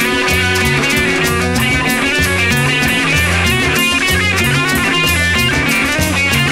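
Rock music: guitar lines over bass and a drum kit keeping a steady beat.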